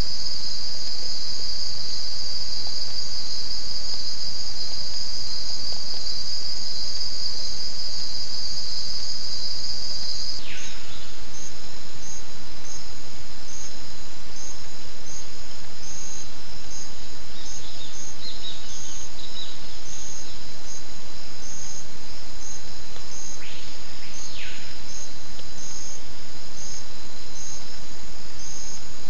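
Loud insect chorus. A steady high-pitched buzzing changes about a third of the way in to evenly repeated high chirps, roughly one and a half a second. Two brief falling whistles cross it, once at the change and again near the end.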